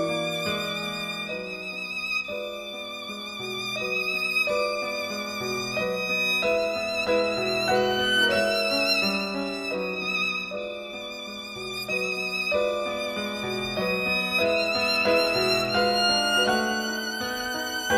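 Background classical music: a violin playing a slow melody with vibrato over a lower accompaniment.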